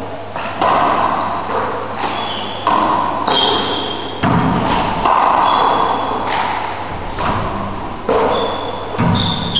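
Rubber handball being struck by hand and rebounding off the court walls and floor during a doubles rally: sharp thuds about once a second, echoing in the enclosed court. Short high squeaks of players' trainers on the wooden floor come between the hits.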